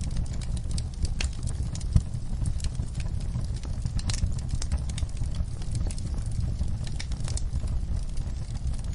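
Fire burning in a fireplace, crackling with irregular sharp pops and snaps over a steady low rumble, the loudest pop about two seconds in.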